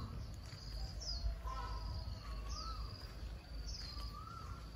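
A bird calling over and over, about every second and a half. Each call is a high note that falls and then holds, paired with a lower note that rises and falls. A steady low rumble runs underneath.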